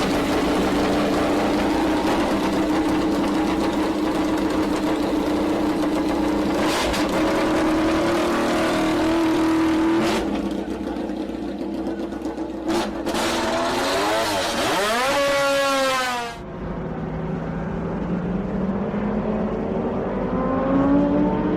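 Racing motorcycle engine held at high revs for about ten seconds, then revving up and down in quick sweeps before cutting off suddenly about 16 seconds in. A second engine pass follows, its pitch rising steadily toward the end.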